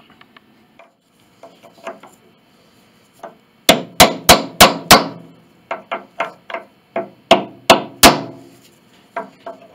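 Small hammer striking a wooden block held against a stuck castle nut on a grand piano's cast-iron plate, to knock the nut loose. After a few faint clicks, a quick run of five hard blows about three a second, then lighter taps, three more hard blows, and light taps near the end.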